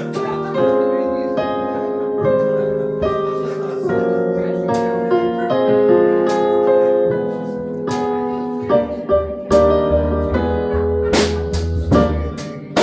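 Live music: a piano-led instrumental introduction of sustained chords, with a low bass line joining about two-thirds of the way through and a few sharp percussive hits near the end.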